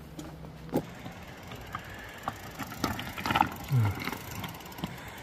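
Loaded mountain bike being pushed on foot over loose rocks: irregular knocks and rattles from the bike and its bags jolting over the stones, mixed with boot steps on rock.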